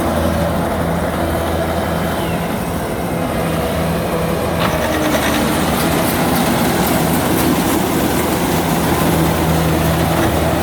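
Kubota DC93 combine harvester running continuously. Its diesel engine's steady note turns rougher and less even from about two seconds in, steadying again near the end, with a short rattle of clicks about halfway through.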